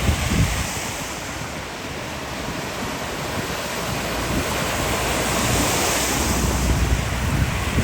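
Severe thunderstorm: a steady rush of heavy rain and strong wind, with gusts buffeting the microphone in low rumbles that swell in the second half.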